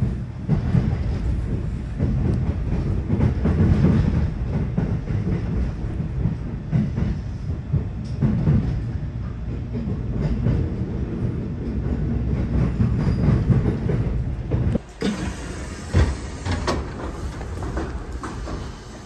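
Noto Railway diesel railcar running along the line: a heavy low rumble with irregular knocks from the wheels and rail joints. About fifteen seconds in, the sound cuts abruptly to a quieter stretch with sharp clicks.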